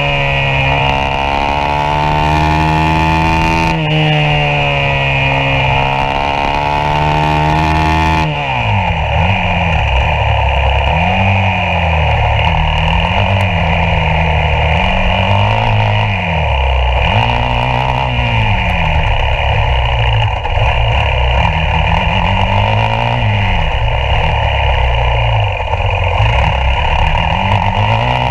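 Yamaha YZ450F's 450 cc single-cylinder four-stroke engine at racing revs, heard onboard. It climbs through high revs with a gear change about four seconds in, drops sharply at about eight seconds, then rises and falls again and again every second or two under short bursts of throttle.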